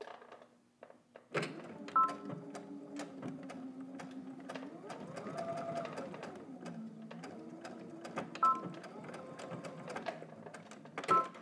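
Electronic sewing machine stitching a short seam through two layers of denim, its motor starting about a second in, speeding up in the middle and slowing again, with the needle ticking along. Three short two-tone beeps from the machine come about two seconds in, near the end of the run and at the very end, matching the backstitch at the start and end of the seam.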